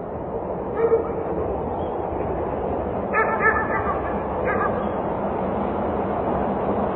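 A dog barking: one bark about a second in, a quick run of barks around three seconds, and another shortly after. Underneath is a steady hum of distant traffic.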